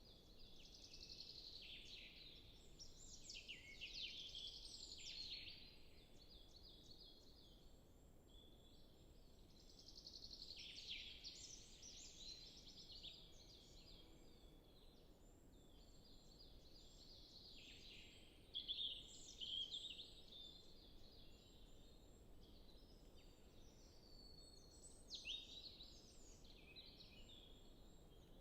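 Several songbirds singing in a forest, quiet and at some distance. Phrases of varied, gliding notes come every several seconds over a steady run of short, repeated high notes from another bird.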